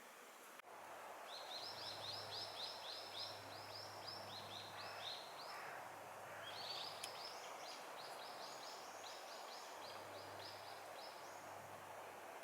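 A songbird singing a rapid trill of short, high, repeated notes, about four or five a second, in two phrases of roughly four to five seconds each, over a steady background hiss.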